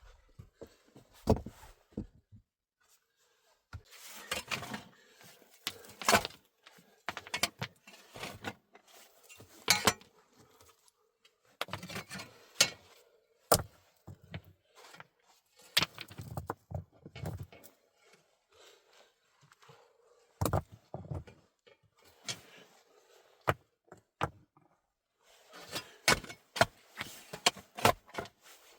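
Irregular handling sounds: sharp knocks and clinks mixed with rustling, coming in short clusters with brief pauses.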